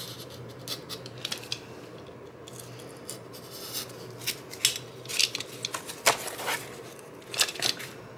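Utility knife blade slicing through cardboard in short strokes, each a crisp scratch. The strokes come faster and louder in the second half as a section is cut free.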